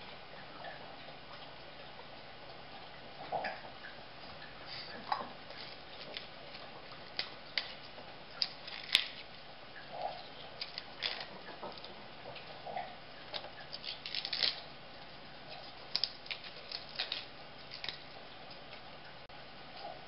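Hands tearing crisp romaine lettuce leaves and laying them on a rice paper wrapper: irregular small snaps, crackles and rustles, with one sharper click about nine seconds in.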